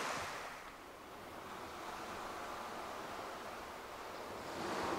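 Waves washing onto the shore in a steady rush that swells twice, near the start and again near the end.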